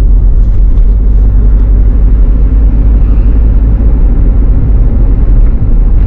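Car driving along a dirt road, heard from inside: a loud, steady low rumble of engine and tyre noise.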